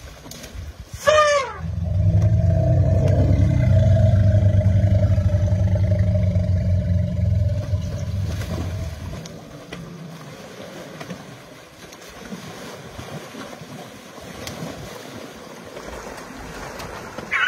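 An elephant gives one short squeal that slides down in pitch about a second in. It is followed by a loud low rumble with a steady hum, lasting about seven seconds, which then fades to a quieter wash of moving river water.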